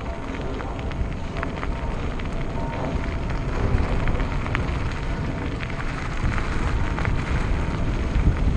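Mountain-bike tyres crunching over loose gravel, a steady crackle of small stones, with wind buffeting the helmet-mounted microphone in a low rumble.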